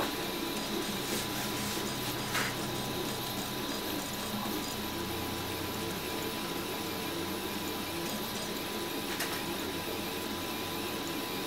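RepRap Huxley 3D printer running a print: its stepper motors hum and whine as the extruder head moves, the pitch stepping up and down as the moves change. There is a light click twice, about two seconds in and near the end.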